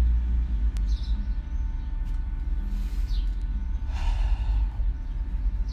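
A man breathing between sentences, with a sigh-like breath about four seconds in, over a steady low rumble.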